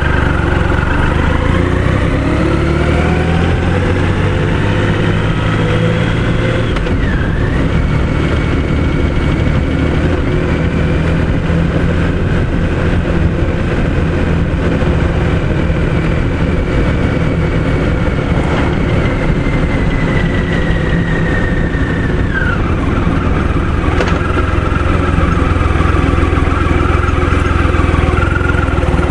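Engine of the moving vehicle carrying the camera, over heavy road and wind rumble: it climbs in pitch, drops sharply about seven seconds in as it changes gear, runs steadily, then falls in pitch a little past twenty-two seconds in.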